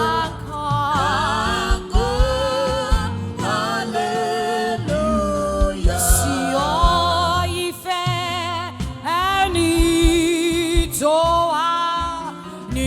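Gospel worship singing: a solo voice sings long, wavering lines with vibrato over steady low keyboard or bass accompaniment.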